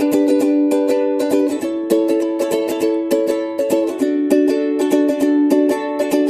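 Background music: bright plucked ukulele-style chords with a quick strummed rhythm.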